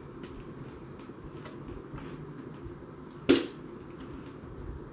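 Handling noise of the SABRE M20 blaster's internal mechanism being fitted back into its receiver by hand: faint ticks and rubbing, with one sharp click about three seconds in.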